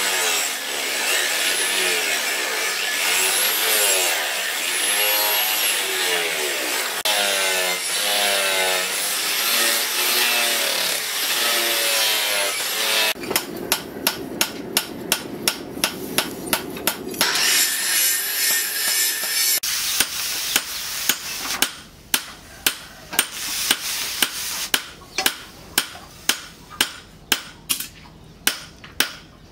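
Angle grinder with a sanding disc grinding a steel knife blade, its pitch wavering as the load changes, for the first dozen seconds or so. After that, a regular run of sharp knocks, about two a second.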